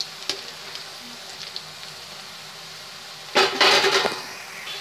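Vegetable pakoras deep-frying in oil in a metal kadai: a steady sizzle with a few light taps of a slotted spatula. About three and a half seconds in comes a louder burst of stirring, scraping and sizzle lasting under a second, as the spatula turns the pakoras over.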